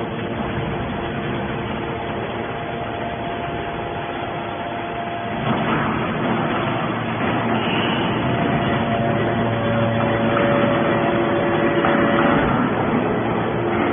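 Hydraulic scrap metal baler running, a steady machine noise with several held tones, growing louder about five seconds in.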